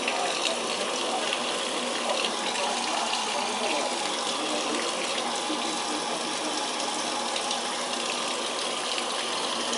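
Water running steadily into a Brastemp BWL07A washing machine as it fills at the start of the wash cycle.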